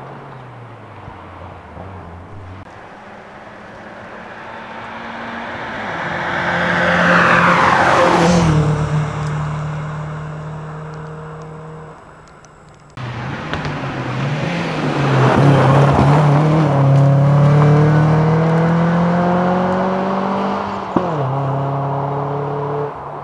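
Rally car BMW E36 318is with its four-cylinder engine, passing close at speed, its pitch falling as it goes by about eight seconds in. After a cut, the engine climbs steadily in revs under acceleration, then the revs drop suddenly near the end.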